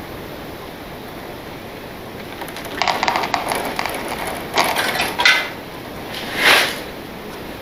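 Close handling noise: a few short bursts of clattering and rustling, with a brief swelling whoosh near the end, over a steady background hiss.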